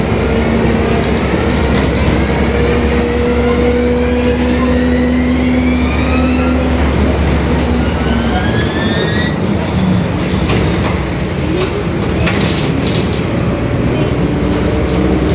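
Mercedes-Benz OF-1721 city bus running on board, its differential growling. A whine rises steadily in pitch for about nine seconds and then breaks off, over the low running of the drivetrain, with a few rattles later on. This kind of growl is typical of worn differential gears.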